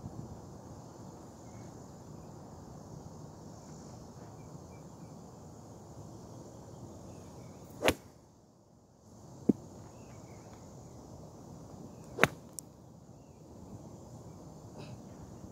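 Golf club striking a ball: sharp clicks about eight and twelve seconds in, with a smaller tap between them, over steady outdoor background noise and a faint high insect hum.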